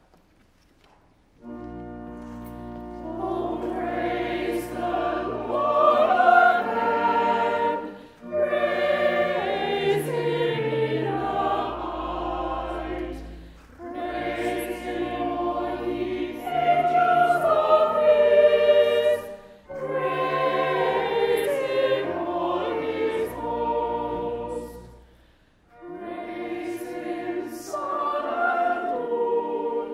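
Church choir singing with organ accompaniment, in phrases of a few seconds with short breaks for breath. Low organ pedal notes are held beneath the voices.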